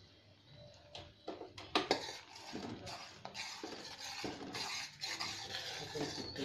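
A steel spoon stirs and scrapes around a stainless steel pot of thick, boiling passion fruit jam that has reached setting consistency. The spoon clinks against the pot a few times about a second in, then keeps up a steady scraping.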